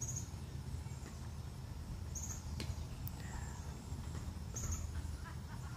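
Outdoor ambience with wind rumbling low and steady on the microphone. A short, high chirp repeats about every two and a half seconds, with a few faint bird-like calls and a click or two between.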